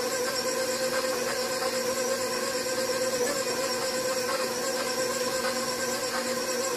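Electric stand mixer running steadily with a constant motor whine, mixing flour and cold water into dough.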